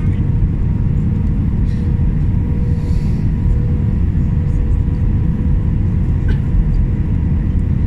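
Steady cabin noise of an Airbus A319-111 on approach with flaps extended: a deep rumble of airflow and its CFM56 engines, with a faint steady hum.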